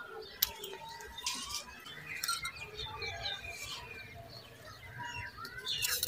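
Birds chirping and twittering in many short, quick calls, with a few brief rustling bursts, the loudest near the end.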